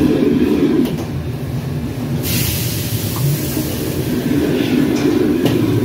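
Steady low roar of a commercial kitchen's gas wok burner and extraction hood. About two seconds in, a loud sizzling hiss of food in the hot wok sets in, then eases.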